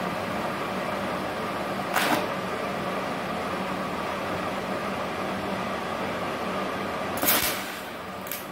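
DC TIG welding arc on steel, run from a Multipro TIG 400D G-TY inverter welder at about 190 A with argon shielding gas, hissing steadily over a faint hum. Two sharp crackles break in, about two seconds in and again near the end, after which the sound drops a little.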